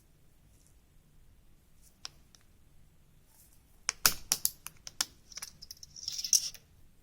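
Handling of small tools and a thin aluminium sheet cut from a drink can on a work surface: quiet at first, then a quick run of sharp clicks and taps about four seconds in, followed by about a second of scratching.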